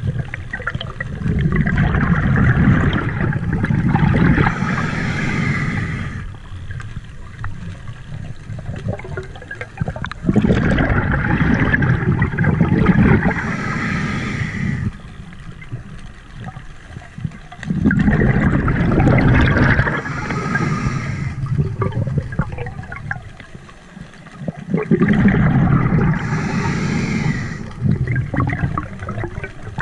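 A scuba diver breathing underwater through a regulator: four long rushes of exhaled bubbles, each a few seconds long and roughly eight seconds apart, with quieter stretches between them.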